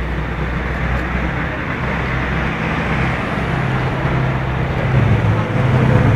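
Car engine running with road noise, its low hum growing louder about five seconds in as the car comes closer.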